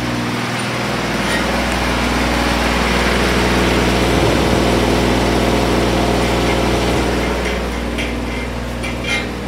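Small engine running at a steady speed, an even hum that is slightly louder through the middle.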